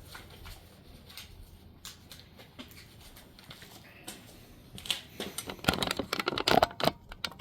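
Handling noise: a few faint ticks, then a quick run of sharp clicks and light knocks from about five seconds in to about seven seconds.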